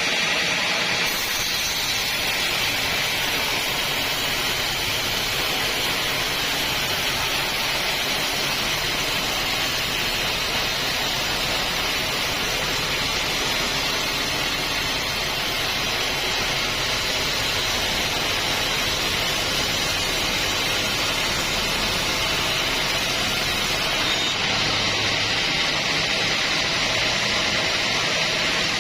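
Sawmill band saw running steadily through an acacia log, a dense even hiss of blade and wood, with a sharper high hiss that starts about a second in and drops away a few seconds before the end.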